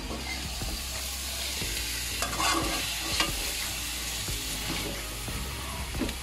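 Chop suey vegetables and meat sizzling in a wok while a metal spatula stirs and tosses them, with a few light scrapes and clinks against the pan in the middle and near the end.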